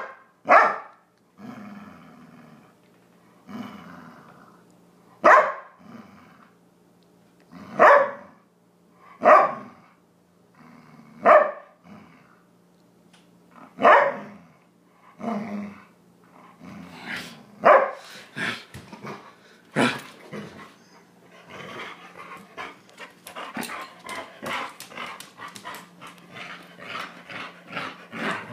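Yellow Labrador-type dog barking with a bone in its mouth while in a play bow, a typical invitation to play. Single barks come every two to three seconds, then quicker, smaller sounds follow in the last several seconds.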